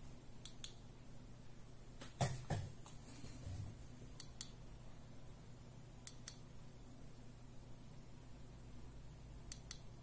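Push-button switch of a mini rechargeable LED flashlight clicked five times, each press a double click as it goes down and comes back up, cycling the light through its modes. The press about two seconds in is the loudest, with a duller knock.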